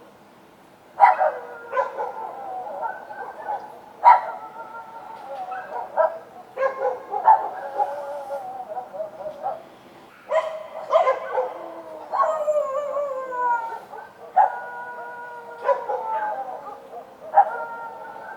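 Street dogs barking at night: sharp barks every second or two, with long wavering howls drawn out between them, one sliding down in pitch about two thirds of the way through.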